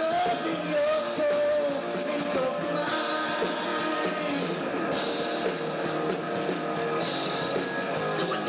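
Live rock band playing: electric guitars and drums, with a singer's held notes near the start and cymbal crashes about five and seven seconds in. The recording is thin, with almost no bass.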